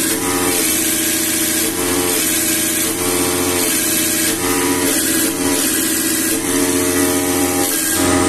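Diesel injection pump test bench running, its drive motor spinning a Bosch VE rotary injection pump at steady speed: a steady mechanical hum with a high hiss.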